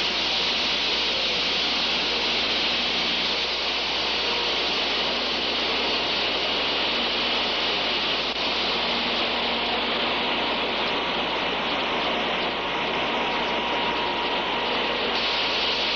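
Liquid jetting from a hand-held spray wand onto oily ground: a steady, unbroken hissing rush of spray, with a faint hum underneath.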